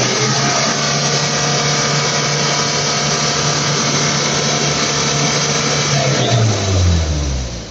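Mitsubishi L300 van's diesel engine revved up and held at high rpm for about six seconds, then falling back toward idle near the end: a free-acceleration run for a smoke-opacity emission test.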